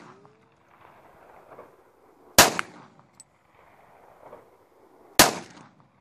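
Two pistol shots about three seconds apart, each a sharp crack that trails off briefly; the tail of a shot fired just before is fading at the start.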